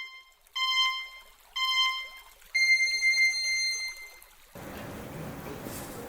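Electronic countdown beeps: short beeps about a second apart, then a longer, higher beep an octave up lasting about a second and a half. Then a steady hiss comes in.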